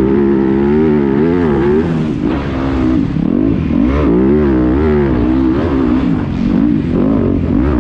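Yamaha YZ250F's 250 cc four-stroke single-cylinder engine, heard on board, revving up and down again and again as the throttle is opened and closed through rutted corners.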